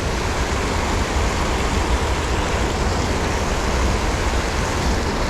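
Wind buffeting the microphone in a steady low rumble, over the rushing water of a high, fast-flowing creek.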